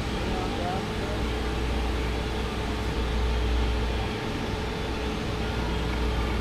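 Steady machine hum and whir of a CNC tool grinder running, a constant low drone with a steady tone over it, while it handles a carbide insert between grinding cycles.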